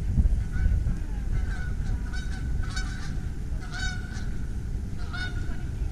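A waterbird giving a series of short honking calls, about six in a few seconds, over a steady low rumble.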